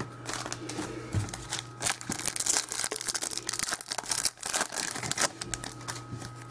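Trading-card pack wrapper crinkling and tearing as it is opened by hand: a dense run of crackles for about five seconds that dies down near the end.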